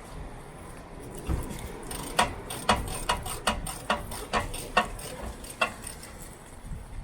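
Ratchet spanner working a suspension mounting bolt: a run of sharp metallic clicks, about two a second, that stops shortly before the end.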